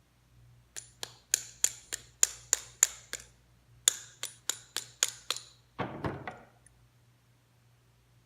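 Hammer tapping a bearing down into the Porter Cable 7518 router's housing, metal on metal with a bright ring: about nine taps, a short pause, then about six more, roughly three a second, followed by a brief clatter. The bearing is not going all the way down into its seat.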